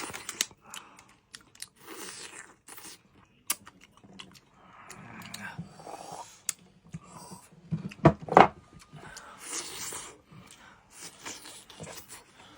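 People eating steamed barnacles: chewing and crunching, with short clicks of shells being handled and picked apart. There is a louder burst of noise about eight seconds in.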